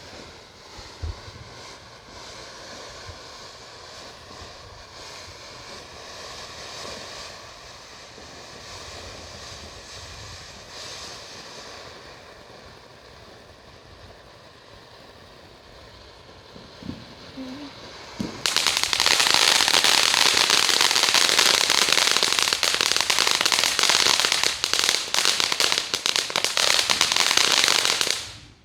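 Consumer ground firework going off: a quieter hiss for the first part, then, about 18 seconds in, a loud dense crackling that lasts about ten seconds and cuts off sharply near the end.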